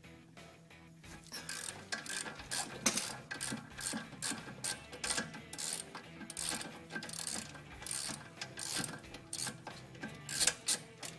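Socket ratchet clicking in quick runs, starting about a second in, as it unscrews the 13 mm bolt from the front brake caliper's sliding guide pin.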